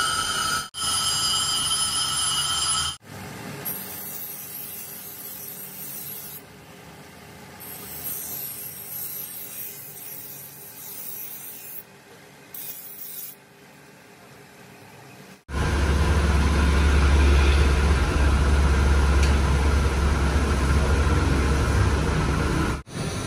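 Metalworking tool sounds in several cut-together segments. First comes a steady machine whine with several fixed pitches, then about twelve seconds of quieter uneven scraping and rubbing on metal. About fifteen seconds in, a loud, low rumbling power tool starts and runs for about seven seconds before cutting off.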